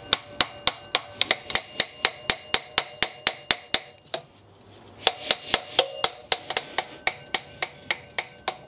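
Quick, even hammer taps, about four a second, knocking the intake rocker shaft of a BMW M20 cylinder head through into place, each tap with a short metallic ring. The tapping pauses for about a second around the middle, then resumes.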